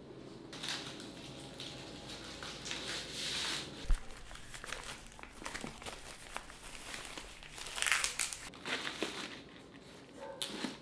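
Dry wrapping leaves crinkling and rustling in irregular handfuls as they are peeled back from a leaf-wrapped sticky-rice cake, with one sharp knock just before the fourth second.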